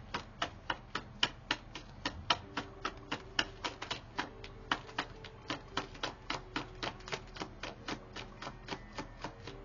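A deck of tarot cards being hand-shuffled, the cards snapping against each other in an even run of about four to five clicks a second.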